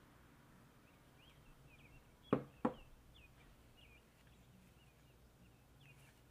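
Two sharp knocks about a third of a second apart as a small glass prep bowl is handled over a large glass mixing bowl.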